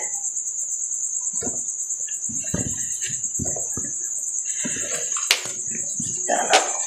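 Crickets trilling steadily, with scattered knocks and light clatter of containers being handled, and a sharp click about five seconds in.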